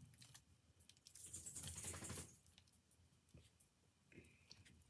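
Faint sticky clicks and crackles of sticky homemade slime being stretched and squeezed between fingers, with a louder rustling stretch lasting about a second, starting about a second in.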